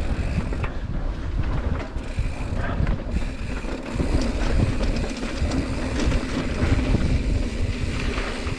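Mountain bike rolling down a dirt singletrack trail: tyres rumbling over the ground with the bike rattling and knocking over bumps, and wind buffeting the microphone.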